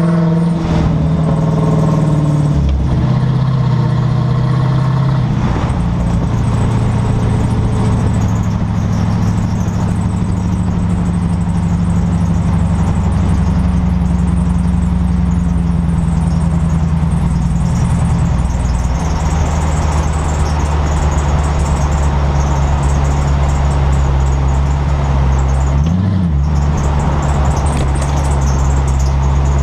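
Rear end of a 2011 Dodge Charger, heard from the left rear suspension beside the differential: a steady low drone from the drivetrain and road, with a squeal from the rear end that, per the owner, now comes at all speeds.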